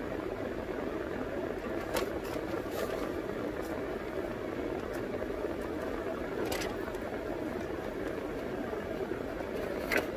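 Steady hum of a car running inside its closed cabin, with a few short clicks and smacks from someone chewing food, the loudest just before the end.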